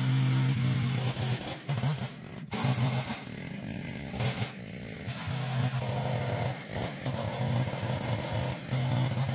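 Stihl two-stroke chainsaw running and ripping a log lengthwise into planks. Its engine note surges and drops several times as the cut loads and eases.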